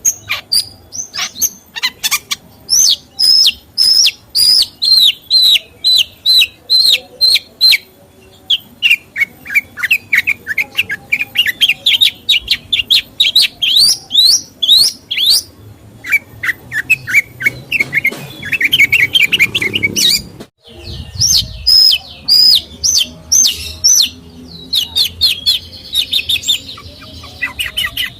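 A songbird singing a loud, varied song of rapid chirps, several a second, in repeated phrases that rise and fall in pitch, with a brief break about two-thirds of the way through.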